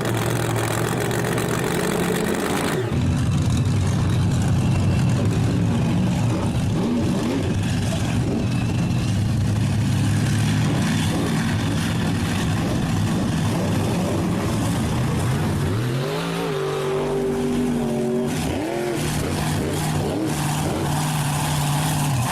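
Monster truck engine sound effect. The engine runs steadily, then cuts abruptly about three seconds in to a louder, rougher run. Near the end it gives a few revs that rise and fall, then settles back to a steady idle.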